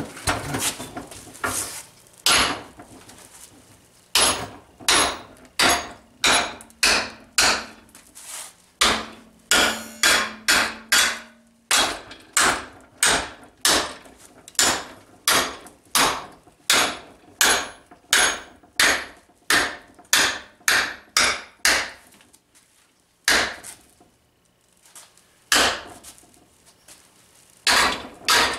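Hammer blows on a TIG-welded aluminium test piece clamped in a bench vise, bending it over to bend-test the weld. The strikes come steadily at about one and a half a second, stop for a few seconds near the end, then start again.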